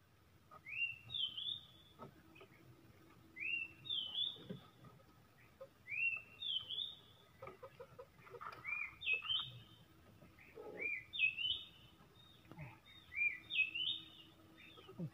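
A bird calling over and over, about every two and a half seconds: each call is a rising whistled note followed by a short flourish of higher notes. Faint scattered knocks sound beneath it.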